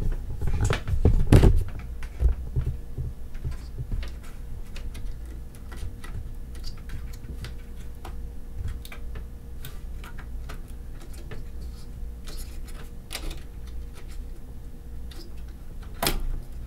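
Plastic clicks and knocks of hands working the retention clips of a desktop motherboard's RAM slot to free the old memory stick: a cluster of knocks in the first second and a half, scattered light ticks, and a sharp click near the end. A low steady hum runs underneath.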